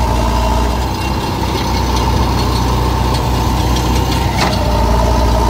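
Diesel engine of heavy machinery running steadily.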